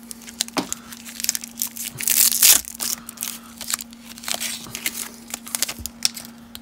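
Baseball card pack wrapper being crinkled and torn open by hand, in irregular crackles with a louder tearing rip about two seconds in. A faint steady hum runs underneath.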